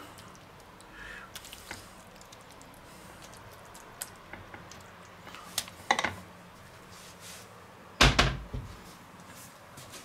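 Ladle scooping noodles out of a heavy pan onto a plate, with a few light clinks and knocks, then one heavy thunk about eight seconds in as the pan is moved off the board.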